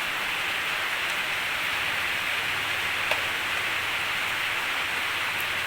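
Steady, even hiss like rain or rushing water that holds the same level throughout, with a single faint click about three seconds in.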